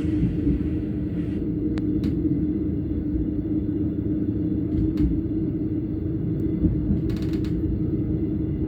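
On-board noise of an ATR 115 diesel railcar under way: a steady low rumble from the engine and running gear, with a few short clicks and creaks about two seconds in, about five seconds in, and around seven seconds in.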